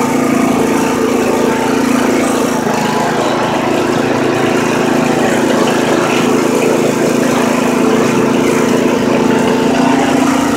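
Riding lawn mower engine running at a steady speed, close to the microphone.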